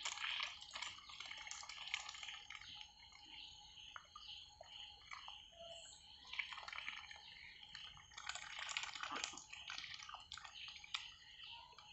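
Ducks dabbling their bills in shallow muddy water: irregular small wet clicks, drips and splashes. They are busier at the start and again late on, with a thinner stretch in between.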